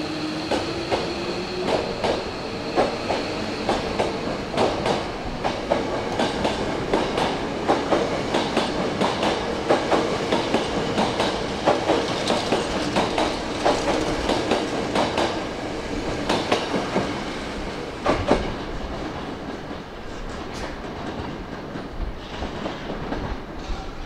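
Hankyu 8000 series electric train pulling out of a station and gathering speed: a rising whine from the motors in the first seconds, then a run of rapid wheel clicks over rail joints as the cars pass. The sound eases off near the end as the last car clears.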